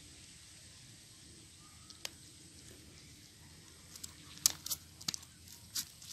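Freshly caught small fish flopping on dry, twig-strewn mud, making a run of sharp slaps and crackles from about four seconds in, the loudest about half a second later, after a faint steady hiss with a single click.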